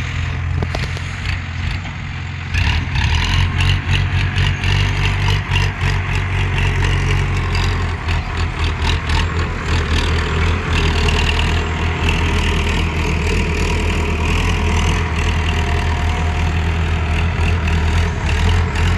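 Diesel engine of heavy farm machinery running steadily, stepping up in level about two and a half seconds in, with rapid clattering over the hum.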